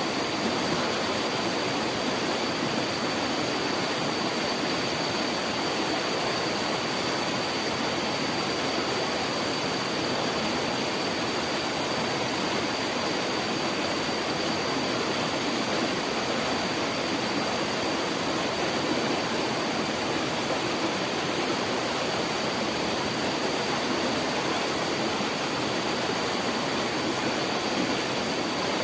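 Water rushing steadily in an irrigation channel, a constant even hiss of flowing water.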